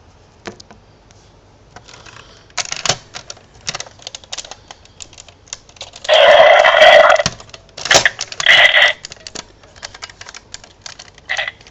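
Gabrevolver toy gun being handled, with irregular plastic clicks and clacks, and two loud electronic sound bursts from the toy's small speaker about six and eight seconds in.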